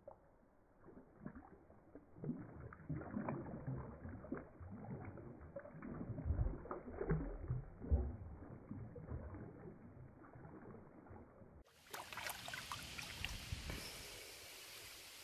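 A hooked bass thrashing in shallow water: irregular splashes, heaviest about six to eight seconds in. About twelve seconds in the sound switches abruptly to a brighter, steadier wash of water with a few more splashes.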